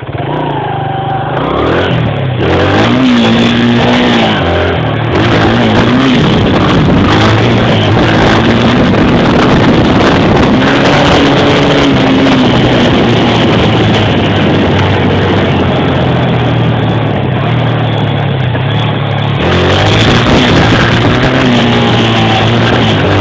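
Honda XR100R dirt bike's single-cylinder four-stroke engine pulling away and revving up and down through the gears, its pitch rising and falling again and again, picked up by a phone mounted on the front of the bike with wind rushing over the microphone.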